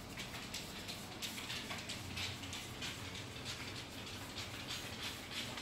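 Golden retriever panting softly, with a patter of light ticks from its claws shifting on the wooden tabletop.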